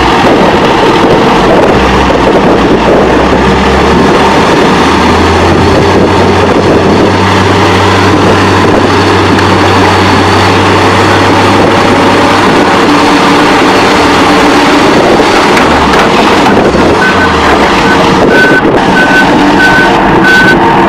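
Heavy vehicle engine running loud, with a reversing alarm beeping about twice a second near the end.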